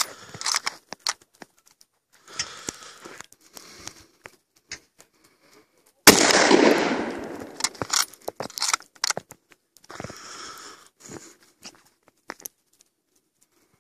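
A 7.62×54mmR Mosin Nagant 91/30 bolt-action rifle fires one loud shot about six seconds in, which fades away over a second or so. Before and after the shot come sharp metallic clicks as the bolt is worked to eject the spent case and chamber the next round.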